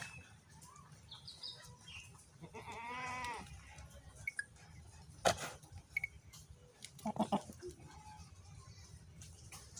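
Goat bleating: one wavering call about three seconds in, then a shorter, lower call a little past seven seconds. A sharp knock comes between them, a little past five seconds.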